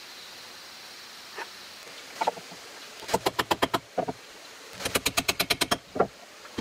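Hand-tool work on a small wooden box: a few single knocks, then two quick runs of sharp taps on wood, about ten a second and each under a second long, and one more knock near the end.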